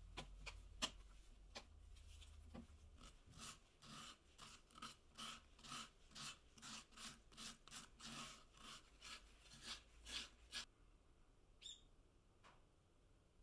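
Faint hand sanding: sandpaper rubbed back and forth along the routed edge of a wooden hanger blank, about two to three strokes a second, taking off the leftover material from template routing. A few light clicks come before the sanding starts, and the strokes stop near the end.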